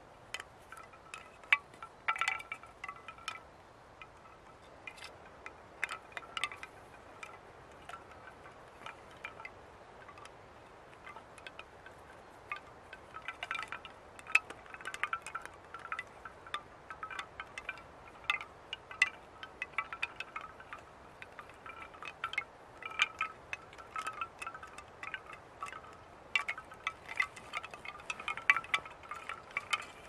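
Homemade bamboo wind chimes striking together at irregular intervals, often in quick clusters, each strike ringing briefly at a couple of fixed pitches.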